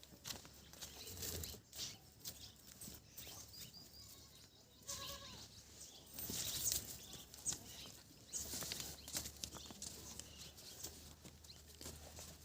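Faint livestock-yard sounds: scattered knocks and rustles of animals moving, with one short high-pitched animal call about five seconds in.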